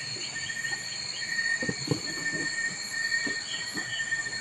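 Steady high-pitched drone of insects, with a few short soft clicks from a Rubik's cube being turned.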